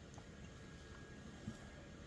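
Near silence: room tone, with one brief soft sound about a second and a half in.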